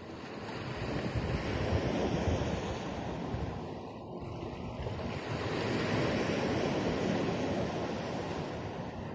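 Sea waves washing onto the shore, the rush of water swelling and easing twice, with some wind.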